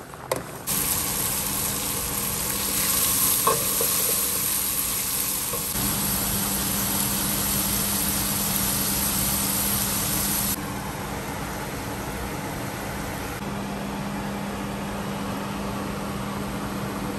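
Food sizzling in a steel pot on the stove and being stirred, in short cuts: pasta and broccoli bubbling, then mushrooms, onion and green pepper frying, then fettuccine in cream sauce. A sharp click sounds right at the start, and a brief clink comes a few seconds in.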